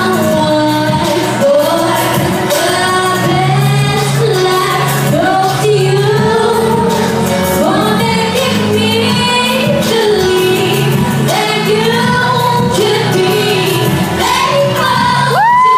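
A woman singing a pop ballad live into a microphone over musical accompaniment, amplified through the hall's loudspeakers. Near the end she rises into a long held high note.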